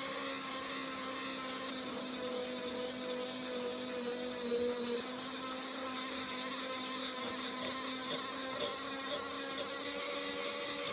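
A small electric power tool's motor running steadily with a pitched whine, its pitch dipping briefly about four to five seconds in.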